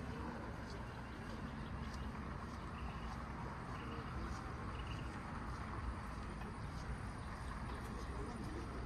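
Steady city street background: a low traffic hum with pedestrian bustle, and a few faint, short high tones a few seconds in.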